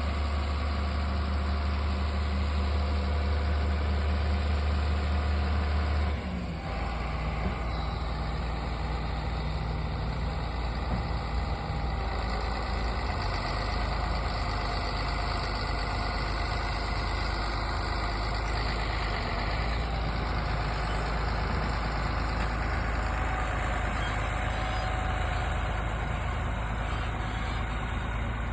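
Heavy diesel farm machinery running steadily, a deep constant engine drone. The drone drops a little and changes character about six seconds in.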